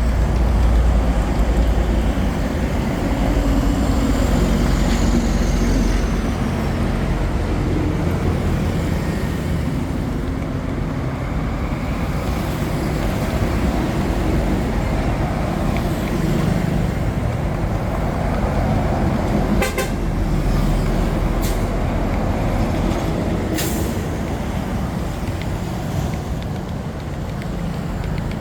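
Steady street traffic rumble, with vehicles passing and horn toots. About two-thirds of the way in, three sharp clicks stand out.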